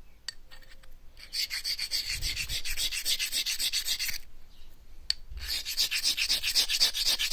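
An opal rubbed by hand against a fine-grit knife-sharpening stone: rapid back-and-forth scraping strokes, several a second, in two spells with a brief pause and a click about four to five seconds in. This is slow hand-grinding to smooth the rough opal toward a cabochon.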